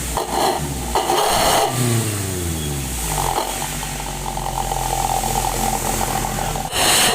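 Daihatsu Luxio's 1.5-litre engine revved in quick blips through a Suos 'ngorok' (snoring-tone) aftermarket muffler, the exhaust note sliding back down after each blip. It then idles steadily for a few seconds before another sharp blip near the end.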